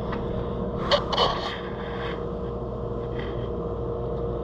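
Brief clatter of parts being handled about a second in, over a steady mechanical hum with a faint constant tone.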